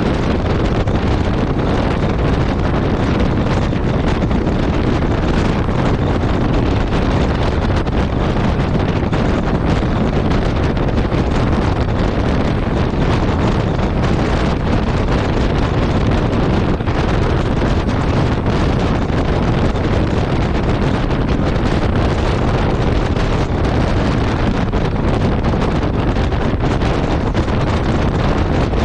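Steady wind noise buffeting the microphone of a Yamaha Ténéré 700 motorcycle ridden at highway speed, heaviest in the low end and unchanging in level.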